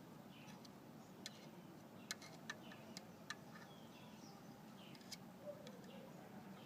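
Faint sharp clicks, about half a dozen at irregular spacing, over a low steady background noise, with faint short chirps in between.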